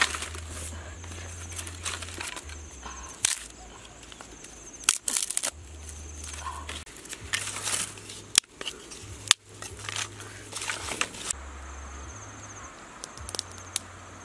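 Dry sticks being handled, broken and laid onto a fire bed: scattered sharp snaps and wooden clatters, with dry grass crunching and rustling underneath.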